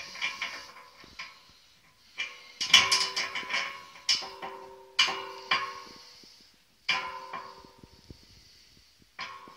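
Background music: an acoustic guitar strummed in short chords, each stroke ringing out and fading, with brief pauses between phrases.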